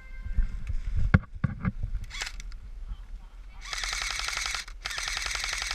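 Airsoft electric guns firing full-auto: two long rapid bursts of sharp clicking pellet shots starting a little past halfway, the second one running on. Before them, low rumble and a few thumps from the camera being carried.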